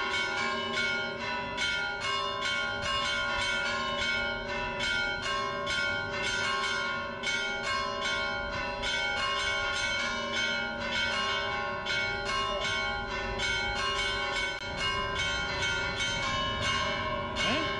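Church bells pealing: a fast, continuous run of strokes, several a second, the tones of each bell ringing on and overlapping the next.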